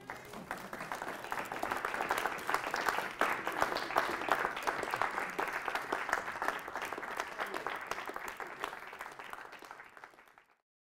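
A small audience applauding, many hands clapping. It builds over the first couple of seconds, thins out near the end and then cuts off abruptly.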